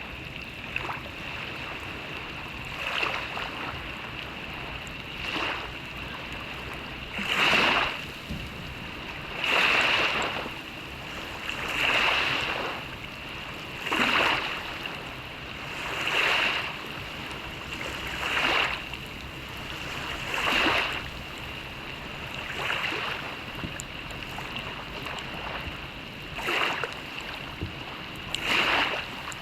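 Rhythmic splashing of swimming strokes in open water, one stroke about every two seconds, over a steady hiss of rain.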